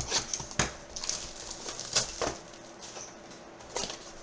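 A trading card box being opened and handled: crinkling wrapper and a few sharp clicks and taps of cardboard and plastic.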